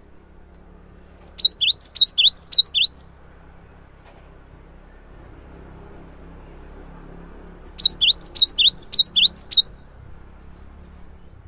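Cinereous tit (gelatik batu) singing: two quick runs of about ten high, down-slurred notes, each run about two seconds long, several seconds apart.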